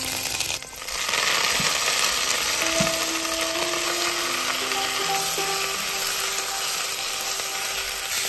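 Hot oil sizzling in a pot as garlic fries and leafy greens are stir-fried with wooden chopsticks; the sizzle swells about a second in and then holds steady.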